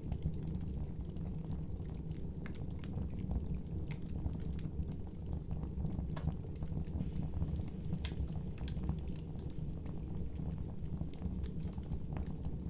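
Wood fire burning: a steady low rush of flames with scattered sharp crackles and pops.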